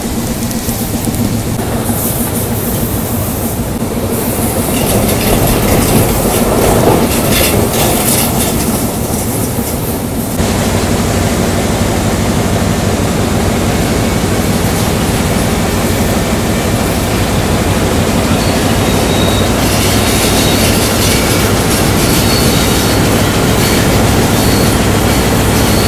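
WDM-3 diesel locomotive running under power, heard from its outside walkway: a steady engine drone over the clatter of the train on the rails. About ten seconds in the sound becomes louder and steadier.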